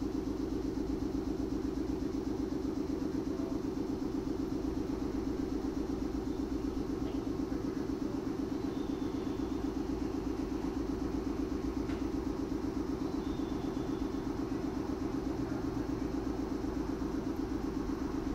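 Steady low vehicle rumble with a fast, even pulsing that holds unchanged.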